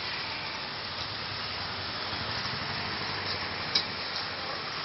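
Steady hiss of egg noodles sizzling in a wok over a gas burner, with one light click near the end.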